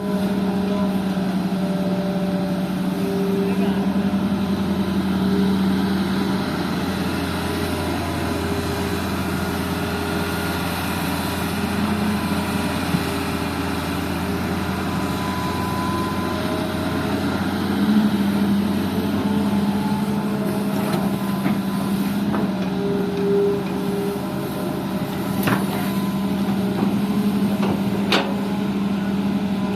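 Heavy diesel earthmoving machinery, an excavator working beside dump trucks, running steadily with a deep engine drone. Two short sharp knocks come in the last few seconds.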